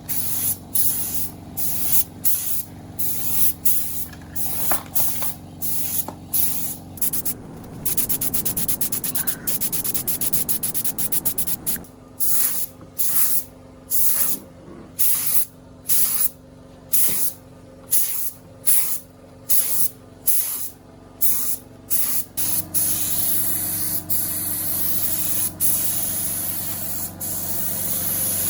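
Compressed air spraying in short repeated bursts, about two a second, with a faster run of bursts a third of the way in, over a steady low motor hum.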